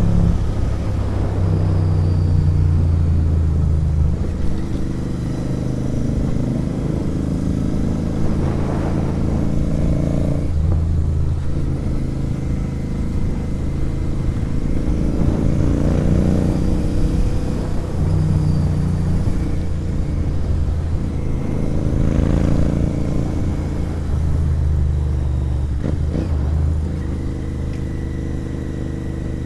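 Royal Enfield Interceptor 650's parallel-twin engine through an aftermarket sport exhaust while riding, its deep note climbing and dropping several times as it accelerates and eases off.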